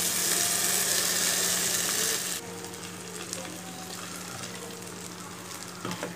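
Onions, tomato and green chilli frying in oil in a non-stick kadai, sizzling as ground coconut paste and then liquid from the grinder jar are poured in. The sizzle is loud at first and drops to a softer hiss after about two seconds. A steady low hum sits underneath.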